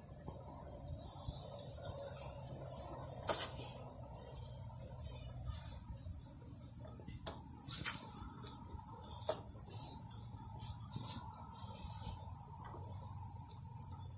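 Air hissing out of a tire through the hole left by a pulled nail, the hiss swelling and fading, with a few sharp clicks.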